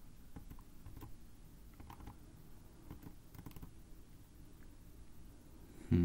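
Faint, scattered computer keyboard keystrokes, a few light taps spread out over several seconds, as cells are selected and digits entered. A brief voice sound comes right at the end.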